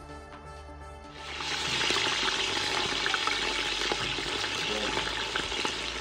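Raw chicken pieces sizzling in hot oil in a large metal pot, the steady loud sizzle starting about a second in with a few small spattering clicks. Music fades out as the sizzle begins.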